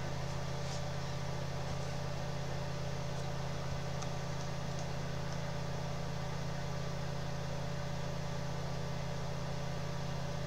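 Steady low hum with a thin, faint, steady tone above it, and a few faint clicks scattered through.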